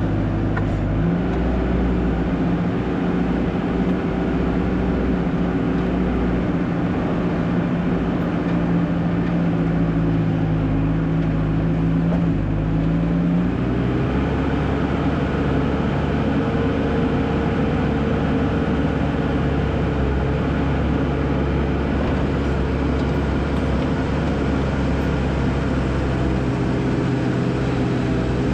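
Skid steer engine running steadily while grading, its note shifting about a second in and again about halfway through as the load changes.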